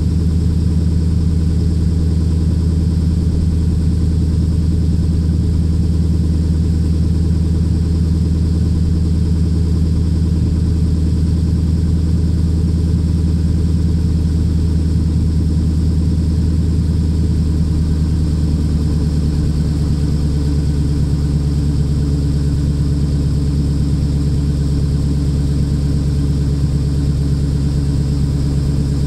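Lexus IS F's 5.0-litre V8 idling steadily after a cold start, heard at the tailpipes through a custom valved exhaust with no resonators. The idle settles a little lower about two-thirds of the way through.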